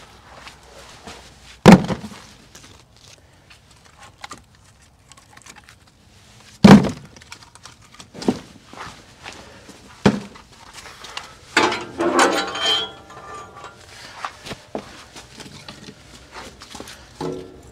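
Split firewood logs knocking and clattering together as they are gathered and dropped into a basket. Two loud wooden clunks come about two seconds in and again about five seconds later, then lighter knocks and a short run of clattering near the middle.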